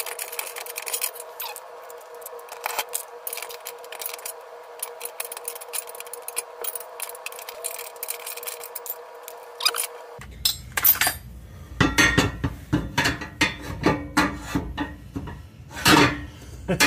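Wrench clicking on a bolt over a steady hum. Then, about ten seconds in, a run of sharp metallic clinks and clanks as the steel transmission crossmember is worked loose and handled.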